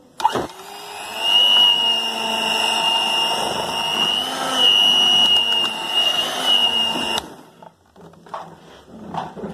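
A small electric motor appliance running with a high whine over a rushing noise, its pitch wavering slightly, then cutting off suddenly about seven seconds in.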